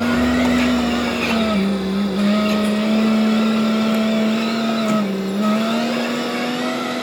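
Excavator's diesel engine running steadily with a strong hum, its pitch sagging briefly twice.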